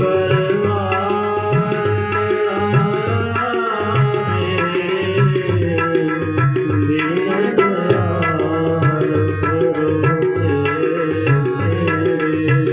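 Tabla playing a steady rhythm under sustained melodic accompaniment in a Punjabi devotional song, with a voice singing the word 'parivar' about two seconds in.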